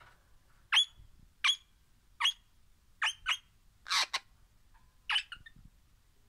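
Crimson rosella (Pennant's rosella) giving a series of about seven short, sharp, high calls, each dropping quickly in pitch, spaced roughly a second or less apart.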